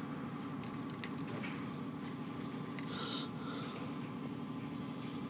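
Automatic car wash machinery running with a steady low hum, and a short hiss about three seconds in.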